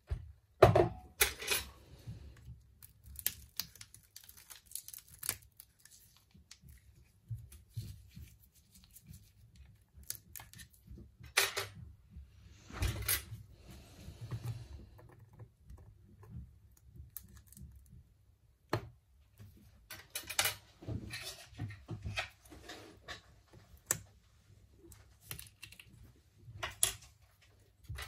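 Small repair tools clicking, tapping and scraping on a smartphone's frame and glass during a screen replacement: irregular sharp ticks with short pauses, and a longer scraping patch about thirteen seconds in.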